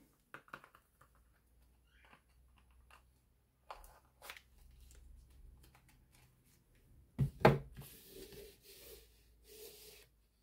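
Paper-wrapped soap bars being handled on a wooden desk: a few faint clicks, a knock about seven seconds in, then three short rustles of the paper wrappers.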